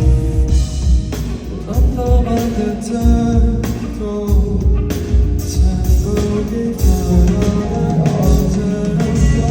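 Live pop song performed by a singer over a loud amplified backing track with a pulsing bass beat.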